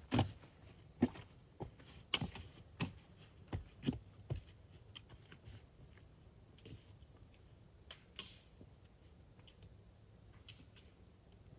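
A hiker's footsteps on the trail: a run of short crunching steps about two a second, loudest in the first four seconds, then fainter scattered steps.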